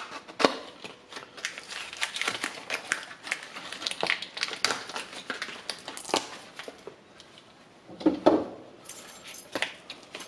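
A new lock cylinder's card-and-plastic packaging being torn open by hand: irregular crinkling and crackling, with a louder tear about eight seconds in.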